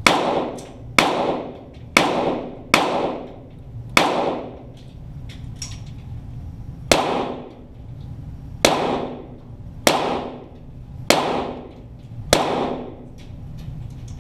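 .22 Walther GSP target pistol shots, ten in all, about one a second in two strings of five with a pause of about three seconds between them. Each shot is a sharp crack followed by an echo that dies away over about half a second.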